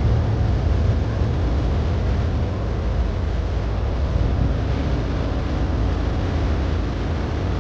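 A boat's engine running steadily, with wind rumbling on the microphone.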